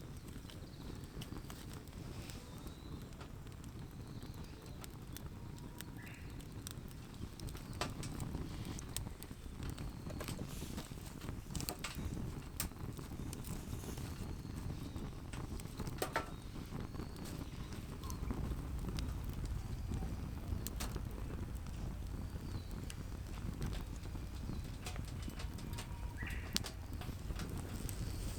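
Irregular light clicks and snaps scattered over a steady low rumble.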